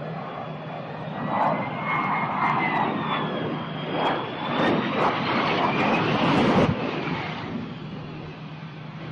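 Harrier jump jet's Pegasus turbofan running loudly at low altitude, its whine slowly rising and falling over a rushing noise. A few short sharp cracks come through the middle, and the noise peaks about six and a half seconds in, then fades.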